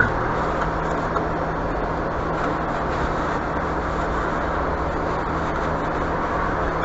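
Steady background noise with a constant low hum.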